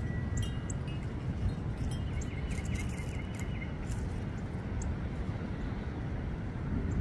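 Outdoor background: a steady low rumble with faint high chirps of small birds, including a quick run of about seven chirps a couple of seconds in.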